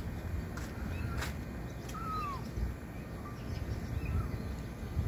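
A kitten mewing faintly a few times out of sight: short, thin calls, the clearest a longer falling mew about two seconds in, over a low rumbling background noise.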